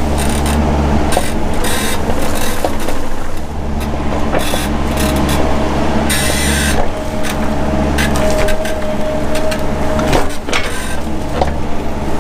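Mini excavator engine running steadily at working speed, with a thin steady whine over it in the middle and scattered sharp cracks and short bursts of hiss as it clears underbrush.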